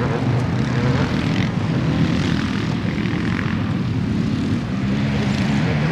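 Dirt bike engines running under throttle, one of them a Honda CRF450's four-stroke single. The engine note wavers up and down as the riders work the throttle.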